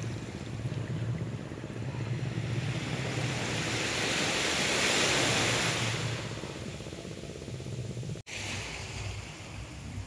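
Sea waves washing up a sandy beach, one wave swelling to its loudest about midway and then fading, with wind rumbling on the microphone.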